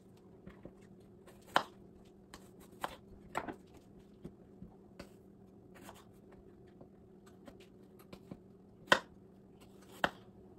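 Kitchen knife slicing a Honeycrisp apple on a wooden cutting board: a few separate sharp knocks of the blade on the board, the loudest about nine seconds in, over a faint steady hum.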